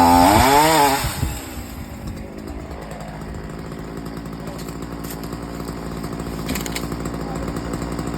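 Chainsaw engine revved once, its pitch rising and falling back within about a second, then idling steadily.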